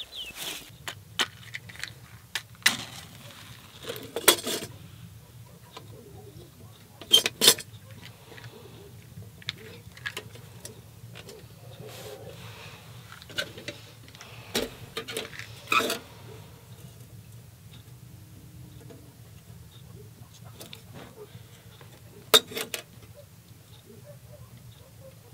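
Kerosene hurricane lanterns being handled and lit: scattered sharp metal and glass clinks and knocks, several of them loud, over a faint steady low hum.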